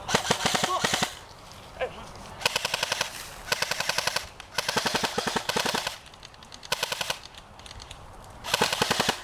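Airsoft guns firing in rapid full-auto bursts: about half a dozen bursts, each from half a second to a second and a half long, with short pauses between.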